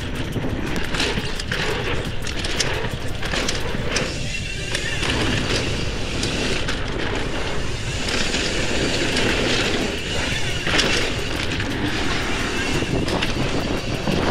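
Mountain bike riding along a dirt trail: a steady rush of tyre and wind noise with frequent clicks and rattles.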